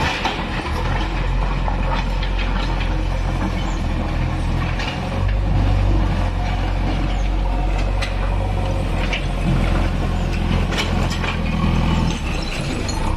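JCB 3DX backhoe loader's diesel engine running steadily, with scattered clanks and rattles from the machine at work.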